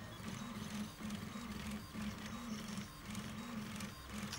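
Guaifi 3D printer's stepper motors whining in short pitched runs, two or three a second and changing pitch, as the print head moves back and forth laying down plastic.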